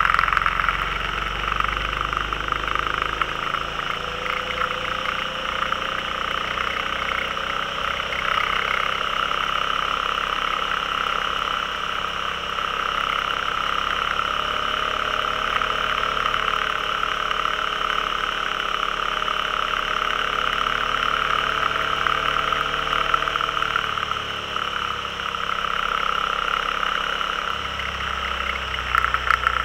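Can-Am Spyder's V-twin engine running on the move, its pitch rising and falling slowly as it speeds up and eases off through the bends, over a steady high rushing noise.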